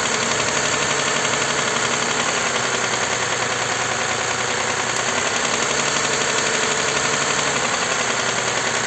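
Toyota 2GR-FKS 3.5-litre V6 engine running with a rapid, steady knock from the bottom end, which the mechanics take for a connecting-rod knock rather than a hydraulic lifter.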